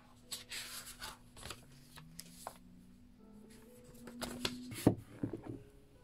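Paper rustling as the pages of a notebook are leafed through and handled, in short hissy bursts. A cluster of sharp knocks near the end holds the loudest moment.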